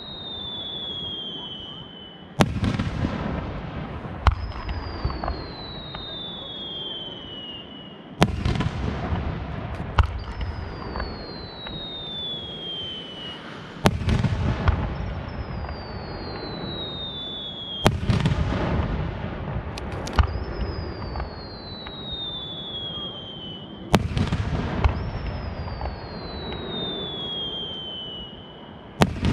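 Aerial fireworks shells going off in a steady sequence, one sharp bang about every six seconds, each followed by crackling and a rumbling echo. Between the bangs a shrill whistle glides down in pitch over two to three seconds, from whistling shells.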